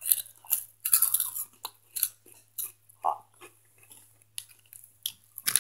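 Hot Cheetos being chewed with loud, irregular crunches close to the microphone.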